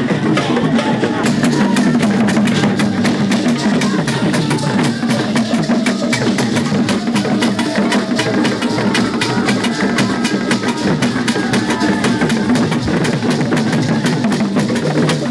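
Traditional Ghanaian festival drumming: wooden drums beaten in a steady, fast rhythm, with gourd rattles shaken in a dense run of clicks over it.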